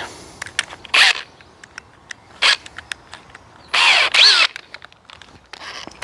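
Cordless drill's keyless chuck being worked to fit a small pilot bit: scattered ratcheting clicks and a few short mechanical bursts, the longest about two thirds of the way through.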